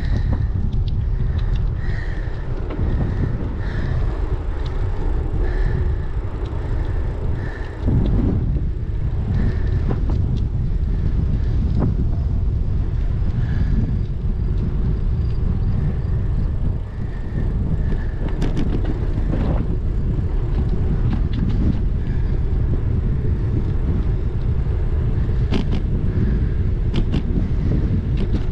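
Wind buffeting the microphone of a bicycle-mounted action camera while riding, a loud steady low rumble mixed with tyre noise on asphalt. A faint chirp repeats about once a second for the first few seconds, and scattered small clicks come later.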